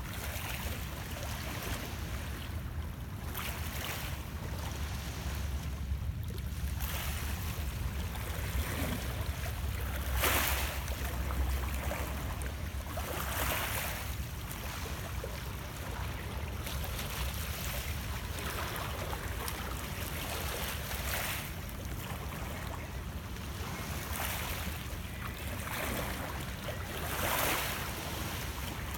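Small lake waves lapping and splashing against shoreline rocks, with a soft wash every few seconds over a steady low rumble.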